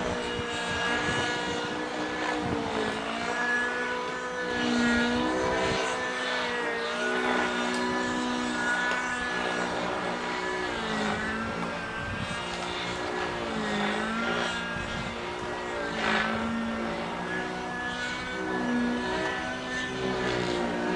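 Radio-controlled 90-size model helicopter's engine and rotor running hard, the pitch dipping and rising again every few seconds as it flies aerobatic manoeuvres.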